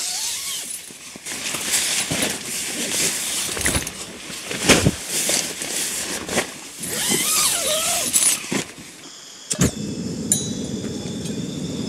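Nylon tent fabric rustling as gear is shifted around in the tent doorway. About nine and a half seconds in there is a sharp click, then the steady hiss of a Coleman propane single-burner camp stove running.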